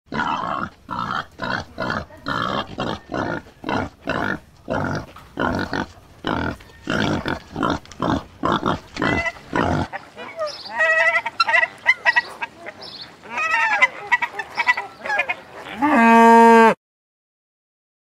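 Pigs oinking in short harsh calls, about two a second, for the first ten seconds; then white domestic geese honking in short pitched calls, ending in one loud, longer call that cuts off suddenly, after which there is silence.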